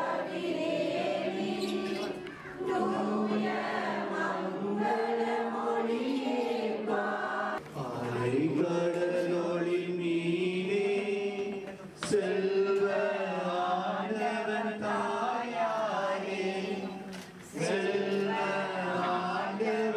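A crowd of many voices singing a hymn together in long held lines, with brief breaks between phrases.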